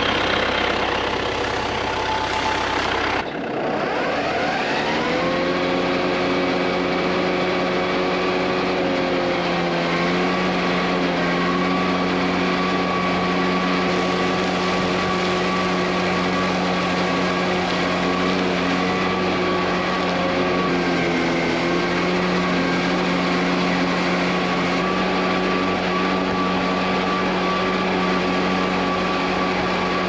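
John Deere tractor engine running under load as it pulls a hay mower through thick, heavy hay. After an abrupt change about three seconds in, the engine note rises over a couple of seconds, then holds a steady hum.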